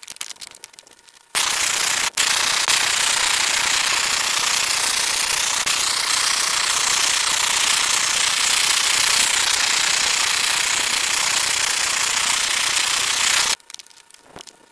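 Propane torch burning with a loud, steady hiss as its flame chars a wooden board. It lights about a second and a half in, breaks for a moment just after, and shuts off near the end.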